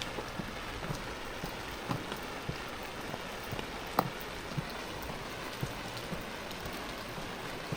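Steady rain falling: a constant hiss with scattered sharp drips and taps, the loudest about four seconds in.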